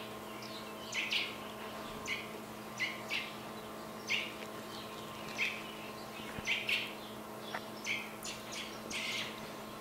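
Young American robin chirping excitedly: short, high chirps, about one or two a second at an uneven pace.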